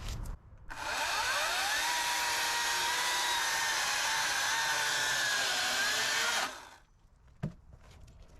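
HART 40-volt cordless brushless chainsaw spinning up with a rising electric whine, then running at a steady high whine as it cuts wood, the pitch sagging a little under load. It stops sharply about six and a half seconds in, and a short click follows.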